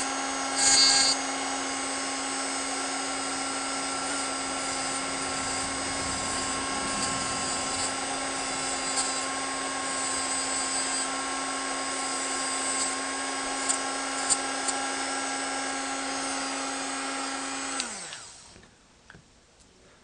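Dremel rotary tool with a cut-off wheel running at a steady whine while grinding the end of a key to shape it, with a brief louder grinding scrape about a second in. Near the end it is switched off and the whine falls in pitch as the motor spins down.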